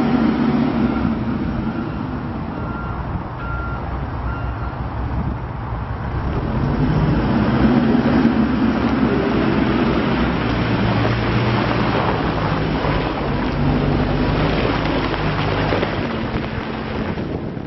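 Volvo BL60B backhoe loader's diesel engine running and working, its speed rising and falling, with wind on the microphone. A short beeping alarm repeats in the first few seconds.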